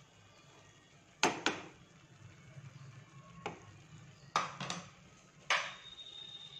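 A lid being set on a kadhai of sweet rice: about six sharp clinks of lid against pan, some in quick pairs, the last one ringing on briefly.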